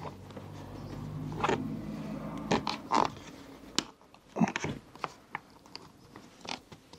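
Car interior trim panel being flexed and worked into place by hand: a scattered series of short clicks, knocks and scrapes from the trim, with a faint low hum in the first half.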